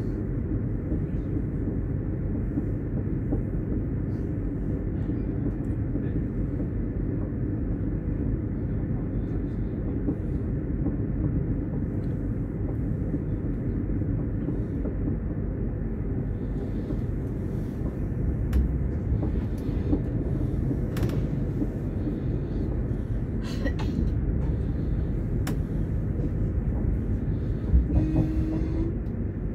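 Passenger train running, heard from inside the carriage: a steady low rumble with a few faint clicks in the second half, and a brief knock and short tone just before the end.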